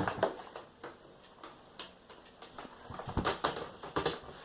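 Laptop's plastic screen bezel being pressed back on by hand, its clips giving scattered sharp clicks and snaps that come closer together in the last second or so.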